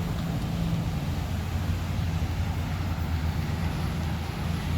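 A car's engine running steadily, a continuous low drone with road or cabin noise over it.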